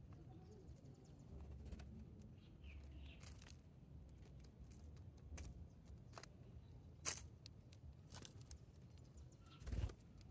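Quiet backyard ambience with a low hum, broken by scattered sharp taps and clicks of small birds pecking and hopping at birdseed, with a few faint chirps. The loudest taps come about two-thirds of the way in and near the end.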